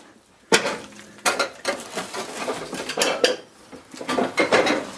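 Irregular clattering and clinking of loose junk being knocked and stepped through, with a sharp knock about half a second in.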